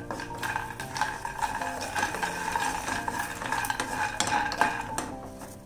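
Wooden spatula stirring raw peanuts as they dry-roast in a hot, oil-free non-stick kadhai: the peanuts rattle and click against the pan and the spatula scrapes the bottom. The stirring eases off and gets quieter near the end.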